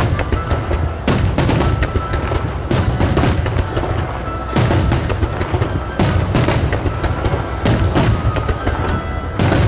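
Star mine fireworks: shells bursting in quick succession with booms and crackles, over music played for the display through loudspeakers.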